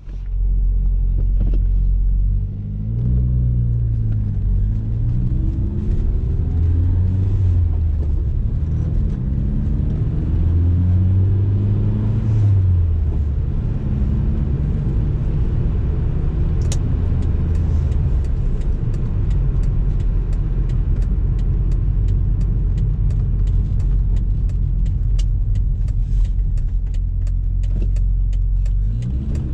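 BMW E30 M3's S14 four-cylinder engine heard from inside the cabin while driving. Its note rises and falls several times over the first dozen seconds as the car accelerates, then settles into a steady drone while cruising, and climbs again near the end.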